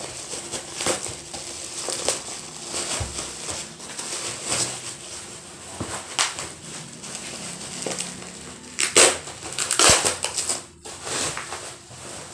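Plastic packaging and parts being handled: irregular crinkling and rustling with scattered clicks, loudest in a cluster about nine to ten seconds in.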